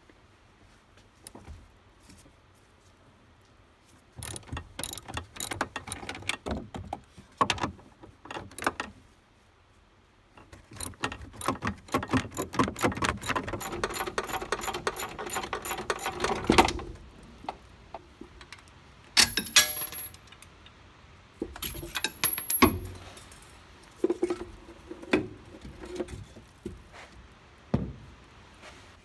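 Socket ratchet wrench clicking in quick runs as the rear strut's top-mount nuts are worked loose, followed by scattered metallic clanks of tools and suspension parts being handled.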